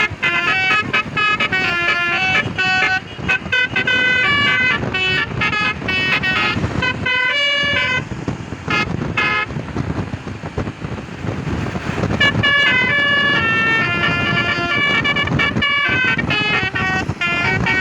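Bus telolet basuri musical air horn (DAV) playing a quick tune of short notes stepping up and down, over vehicle noise. The tune breaks off for a few seconds around the middle, then plays on.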